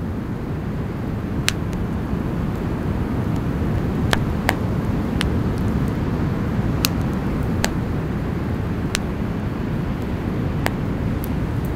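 Wood campfire crackling, with about ten sharp pops scattered at irregular intervals over a steady low rumble.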